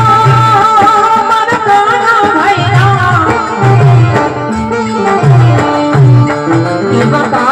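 Live Indian folk devotional music with a tabla-style hand-drum beat under a melodic line, opening on a long held note.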